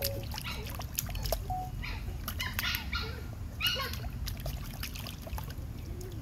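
Schnauzer puppy splashing about in a plastic tub of water: irregular splashes and sloshing, loudest about two and a half and three and a half seconds in.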